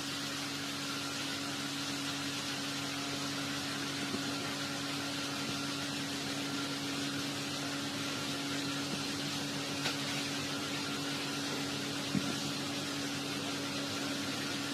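Steady hiss with a low, constant hum, and two faint clicks about ten and twelve seconds in.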